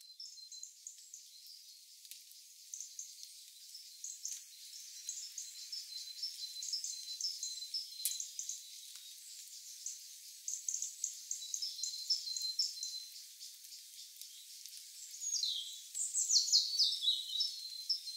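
Forest birds chirping and calling in short repeated notes over a steady high insect drone. About three-quarters of the way through, a run of quick falling bird calls is the loudest part.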